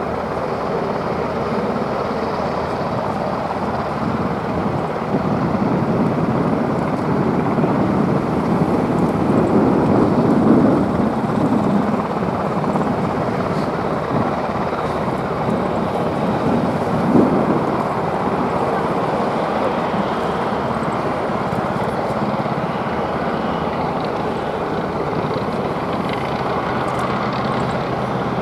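AAV7 amphibious assault vehicle's diesel engine running steadily, swelling louder for a couple of seconds about ten seconds in, with one brief louder knock a little later.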